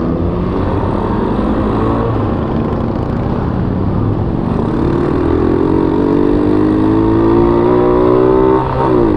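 Rusi Mojo 110 mini bike's single-cylinder four-stroke engine running while under way, its pitch climbing steadily as it accelerates, then dropping sharply near the end.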